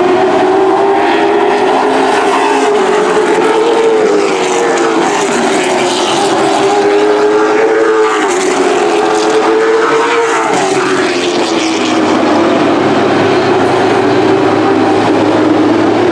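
Several Super Truck race pickups' engines running loud and continuous as they lap the oval. Their pitches rise and fall as the trucks come through the turns and pass by, and the engines overlap around the middle.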